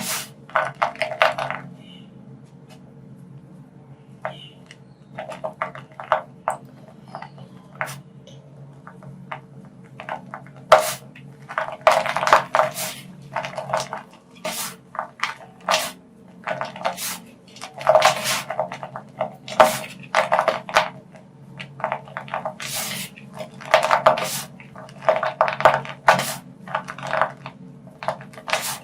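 Soft gym chalk being crumbled by hand: irregular clusters of crisp crunches and crackles, sparse for a few seconds after the start and then coming thick and fast, over a steady low hum.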